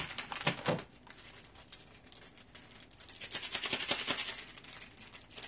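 Plastic ramen packaging crinkling and rustling as it is handled, in two short spells with a quieter gap between, the dried vegetable-flake sachet being opened and emptied.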